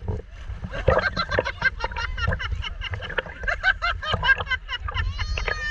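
Shallow seawater sloshing and slapping around a camera held at the surface, many small splashes and drips over a steady low rumble. A high voice calls out briefly near the end.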